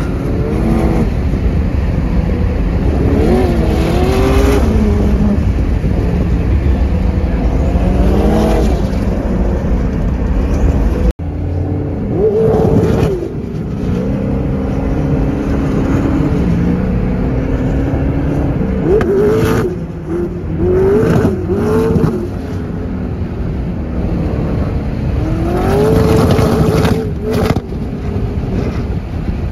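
Funco FD9 sand car's twin-turbo LS V8 engine revving hard as the car accelerates across the sand, its pitch climbing and falling again and again as it pulls through the gears. The sound cuts off for an instant about eleven seconds in.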